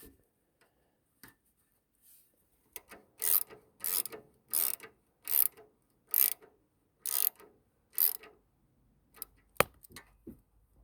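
Ratchet wrench worked in eight even back-and-forth strokes, each a short burst of ratcheting clicks, then a single sharp click near the end.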